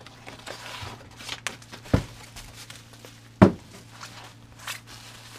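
Rustling and crinkling of bubble wrap and crumpled kraft packing paper as a wrapped item is pulled out of a cardboard box, with two dull thumps about two seconds and three and a half seconds in, the second the loudest. A faint low hum runs underneath.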